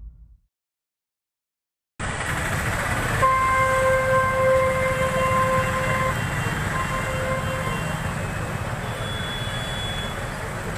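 Street noise with a steady low rumble starts suddenly about two seconds in. Over it a long, steady horn blast sounds for about three seconds, then a shorter one follows.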